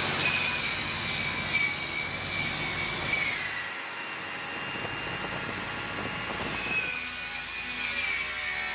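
Electric angle grinder working a steel pipe end, its high steady whine dipping about three seconds in as it bears on the metal. A rougher, scratchier stretch follows, and the whine returns near the end.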